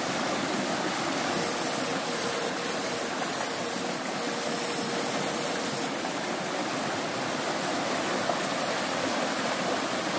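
A shallow, rocky creek rushing in whitewater over stones: a steady, even rush of running water.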